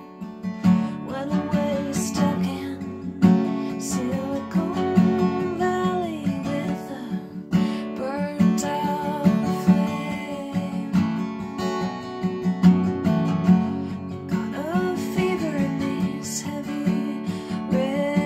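Acoustic guitar strummed steadily with a woman's voice singing along.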